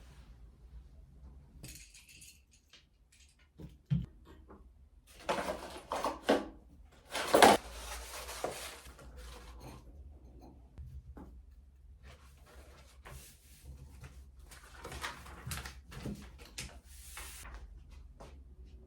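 Irregular handling sounds of objects being moved about: a sharp knock about four seconds in, then several loud rustling, clattering bursts over the next few seconds, and quieter scattered clicks and rustles after.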